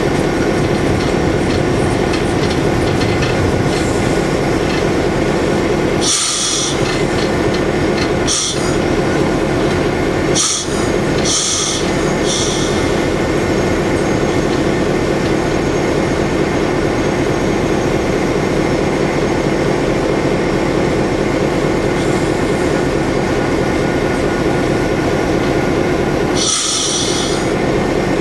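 Cab noise of an EMD FP7 diesel locomotive under way: its 16-cylinder EMD 567 diesel engine drones steadily. Several short, sharp hisses cut in, a cluster about a third of the way through and one more near the end.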